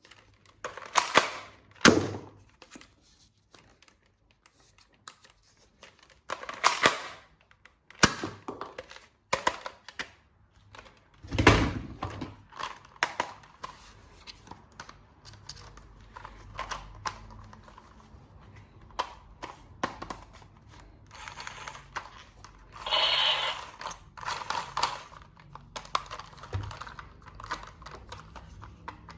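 Plastic toys and packaging being handled during an unboxing: irregular clicks, taps and knocks, a few of them sharper and louder, with a brief scratchy rustle about two-thirds of the way through.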